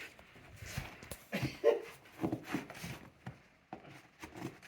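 Irregular soft crunches of deep snow being shoveled and trodden through, a few a second, with short pauses between.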